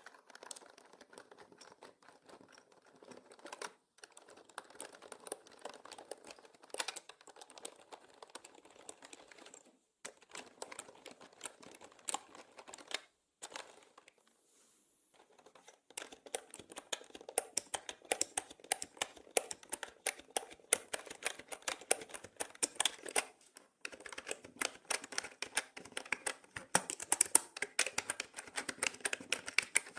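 Typing on a mechanical keyboard: rapid key clicks in long runs, broken by short pauses and a silence of about two seconds near the middle, louder in the second half.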